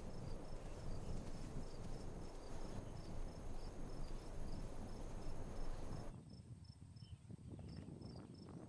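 Crickets or similar insects chirping in a steady, regular pattern of short high chirps, over a low rumbling noise that drops away suddenly about six seconds in.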